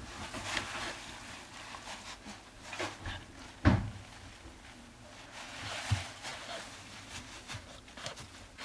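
Scattered rustling and knocks from a puppy moving about on shredded-paper bedding as a hand plays with it, the loudest a sharp thump a little under four seconds in.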